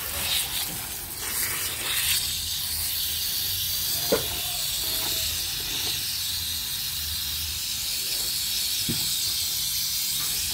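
Water spraying from a garden hose, its end partly covered by a thumb, onto potted plants: a steady hiss, with a small click about four seconds in.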